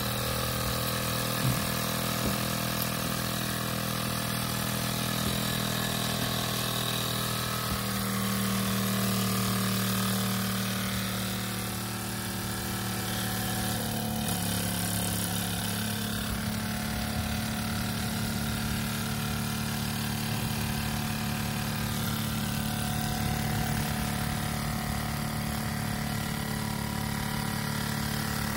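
Mamod TE1A toy live-steam traction engine running steadily under steam, its single oscillating cylinder working fast. The pitch of its running shifts about halfway through as a control is worked.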